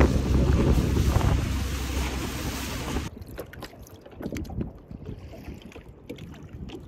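Small aluminium boat (tinny) under way, with heavy wind buffeting the microphone over the low rumble of the boat and rushing water. About three seconds in this cuts off abruptly to a much quieter underwater sound with faint scattered clicks.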